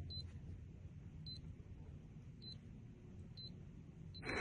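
Schlage electronic keypad door lock beeping once at each key press as the entry code is typed in, about one short high beep a second. Right at the end, the lock's motor starts to run as it unlocks.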